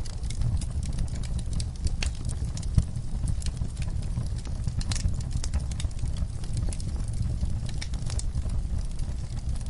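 Wood fire in a fireplace crackling: a steady low rumble of the flames with frequent irregular sharp pops and snaps.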